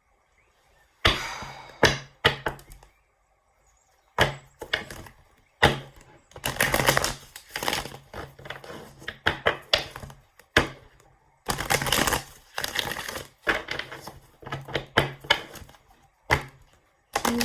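A deck of tarot or oracle cards being shuffled by hand: repeated bursts of rapid card clicks and flutters, starting about a second in, with short pauses between the bursts.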